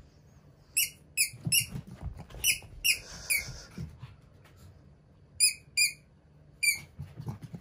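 A green rubber frog squeaky toy squeezed again and again. About nine short, high squeaks come in two bursts with a short pause between, and soft thuds lie between them.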